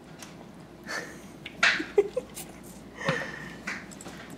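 Toddler slurping spaghetti noodles into his mouth: about four short, noisy slurps over three seconds.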